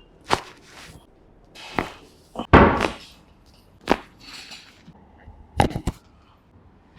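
A series of sharp cracks and smacks during a hands-on chiropractic adjustment of the neck and lower back. About eight strikes: a slightly longer, noisier one before the middle and three in quick succession near the end.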